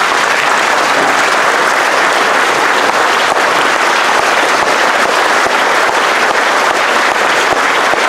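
Audience applauding, a dense steady clapping that stays loud and unbroken.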